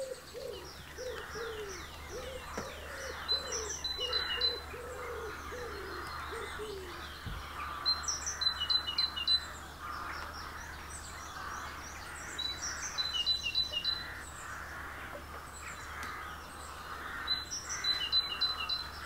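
Wild songbirds singing, one of them repeating a short song phrase about every four to five seconds. A run of low repeated notes sounds over the first six seconds.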